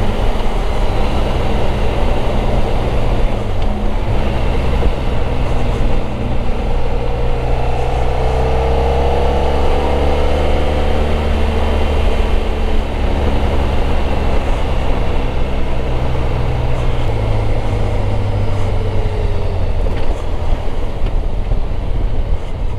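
Motorcycle engine running steadily while under way. Near the middle a pitched drone rises and then falls once.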